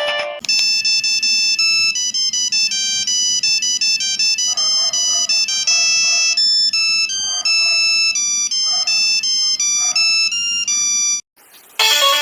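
Old mobile-phone ringtone: a fast electronic melody of high, bright beeping notes that stops about 11 seconds in. After a short gap a different ringtone starts near the end.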